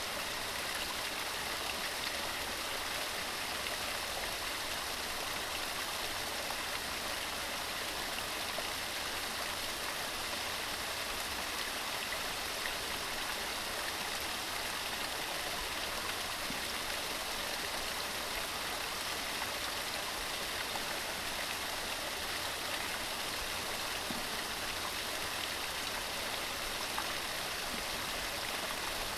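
Mountain stream running steadily over rocks: a continuous even rush of water.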